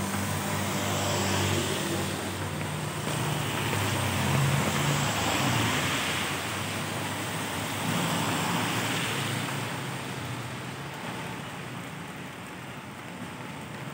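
Steady rain with motor scooters and a car passing on a wet road. Engines hum and tyres hiss through the water, and the traffic fades away over the last few seconds.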